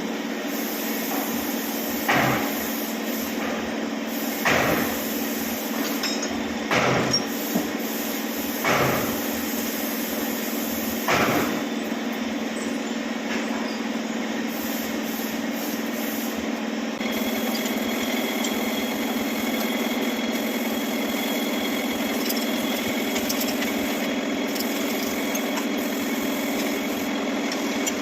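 Six hammer strikes, roughly two seconds apart, over the steady hum of a running machine. The strikes stop about halfway through, and a steady higher whine joins the hum soon after.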